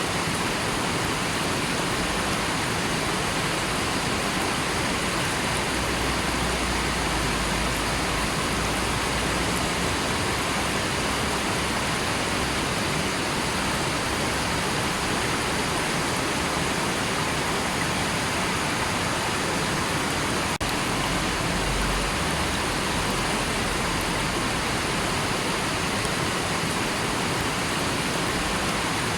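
River water rushing steadily: a continuous, even hiss of flowing water.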